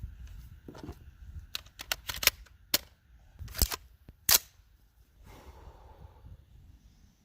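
About a dozen sharp metallic clicks and cracks from a 7.62x39 AR-15 rifle being handled and readied to fire, the two loudest a little past halfway.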